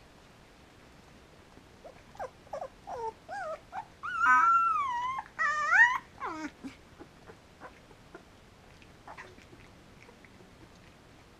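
Three-week-old Samoyed puppy whining. Short squeaks start about two seconds in and build into two longer, wavering high squeals around the middle, followed by a few faint squeaks.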